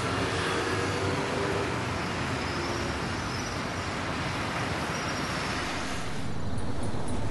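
Steady road traffic noise, a hiss and rumble of passing vehicles on a city street; about six seconds in it turns lower and a little louder.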